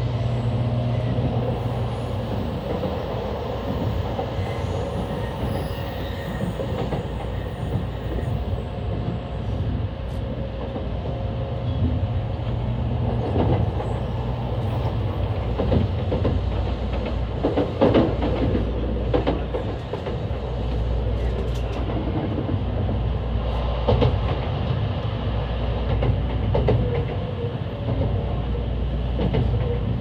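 Train running along the line, heard from inside the carriage: a steady rumble of wheels on rail, with a few louder clatters over rail joints in the second half.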